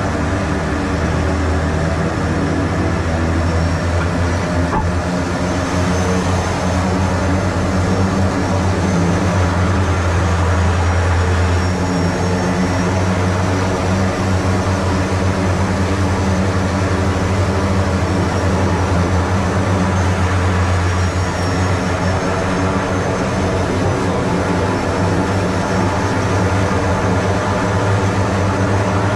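Grumman Mallard flying boat's twin engines running steadily at low power as it taxis on the water, heard from inside the cockpit as a loud, even drone with a faint high whine above it.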